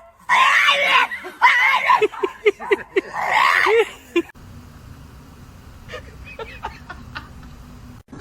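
A person screaming and laughing loudly for about four seconds, with a run of short rapid cries in the middle, then it goes much quieter.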